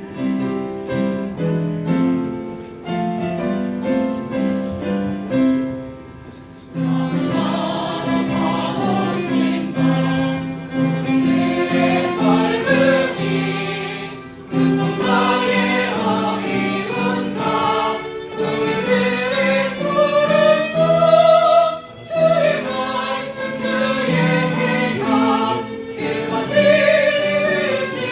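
Choir singing a Korean song over instrumental accompaniment: a short instrumental introduction, with the voices coming in about seven seconds in and singing with vibrato.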